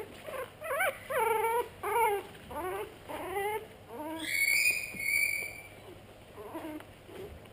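Pug-cross puppies whimpering and yipping: about six short calls that bend up and down in pitch, then a higher, thin drawn-out squeal about four seconds in, and a few faint whimpers near the end.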